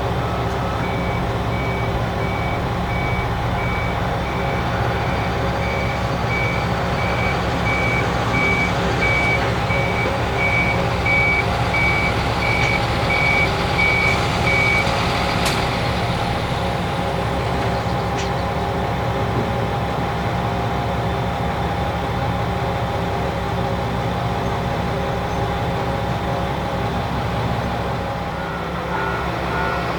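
Diesel railcar engine idling steadily, with a repeated short electronic beep, close to two a second, from about a second in until about halfway through, then a single sharp click.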